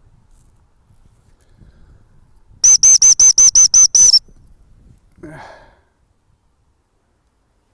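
Dog whistle blown in a rapid string of about nine short, high, shrill pips, about six a second, as a recall signal to call the dogs in.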